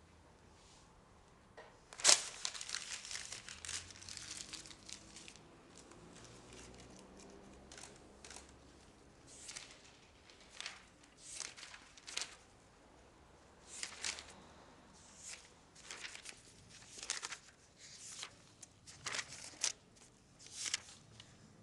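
Dry leaves and paper rustling as they are handled: a sharp crackle about two seconds in with a dense rustle after it, then short separate rustles roughly once a second.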